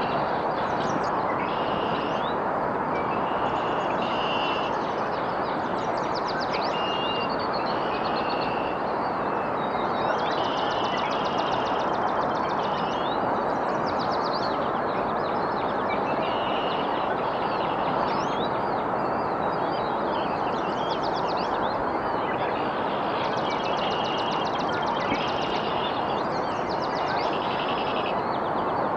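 Several songbirds chirping and trilling over and over with short high calls, over a steady rushing noise from riding a bike along a trail.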